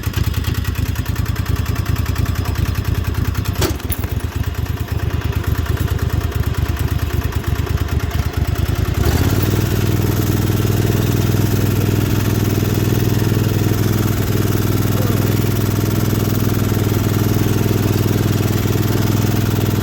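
Lawnmower engine running, turning louder and steadier about nine seconds in, with a single sharp click near the four-second mark.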